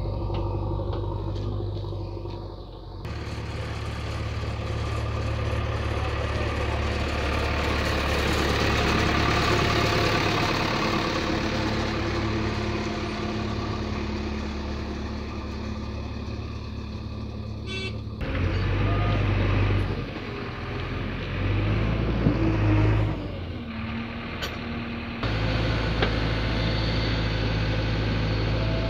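JCB 3DX backhoe loader's diesel engine running steadily while the machine digs, the sound changing abruptly several times, with a brief rise and fall in engine pitch about two-thirds of the way through.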